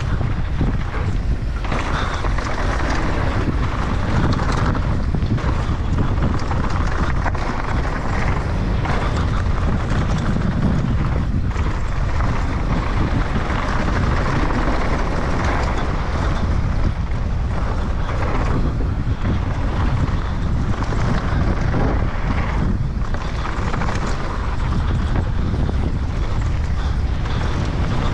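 Wind rushing over an action camera's microphone on a fast enduro mountain-bike descent, under the steady rumble of tyres on dry, rocky dirt and the bike's frequent rattles and knocks.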